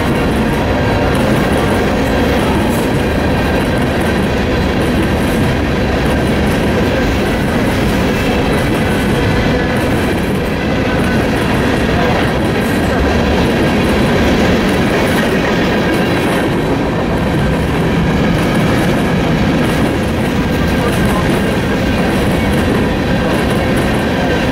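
Freight train rolling past at a grade crossing, a steady loud rumble and clatter of its wheels on the rails, with a faint steady squeal above it.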